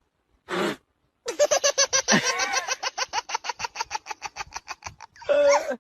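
A person laughing hard: a long, rapid run of 'ha' pulses, about ten a second, that grows weaker toward the end. A brief voiced sound comes near the end.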